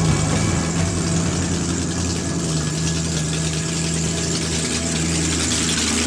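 Monster truck's engine running at a steady low speed, the pitch holding even as the truck rolls slowly forward.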